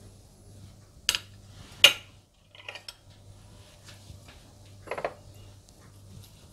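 A few light clinks and knocks of metal kabab skewers and a dish being handled, the loudest about two seconds in, over a faint low hum.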